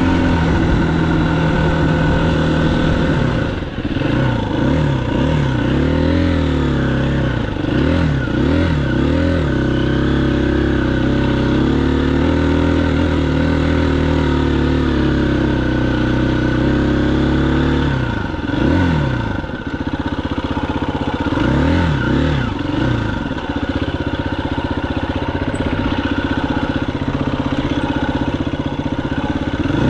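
Engine of a ridden vehicle running under way: held at steady revs for long stretches, with two spells of the revs repeatedly rising and falling, about 4 to 10 seconds in and again about 18 to 23 seconds in.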